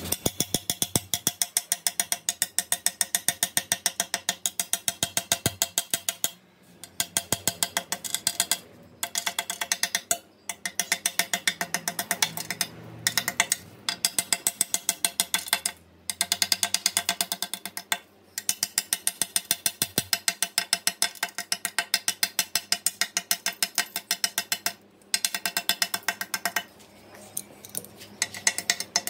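Rapid metal-on-glass tapping, several sharp taps a second in runs broken by short pauses. A metal-headed rod is striking a scored 10 mm glass sheet to run the cuts and break out the inside of the circle.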